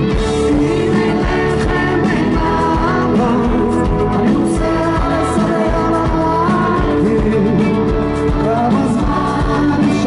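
Live amplified rock band playing: electric guitar and drums under a man singing into a microphone, steady and loud through the stage sound system.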